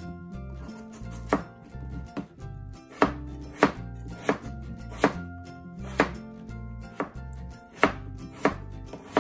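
Broad-bladed kitchen knife chopping peeled raw potatoes on a white cutting board: about ten sharp chops at an uneven pace.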